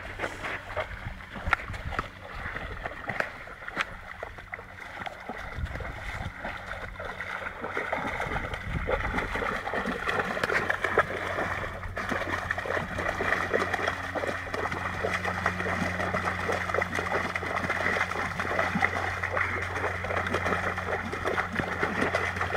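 A Doberman pawing and splashing in shallow water, with constant small splashes that get busier and louder about eight seconds in. A steady low hum joins underneath in the second half.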